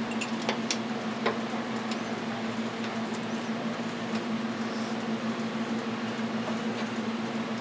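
Steady droning hum, with a few light clicks and taps in the first second and a half.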